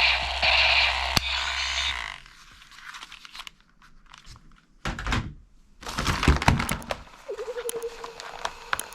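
Background music for about two seconds, then clicks and knocks of a plastic toy gun being handled, with two short noisy bursts near the middle and a brief rattling tone near the end.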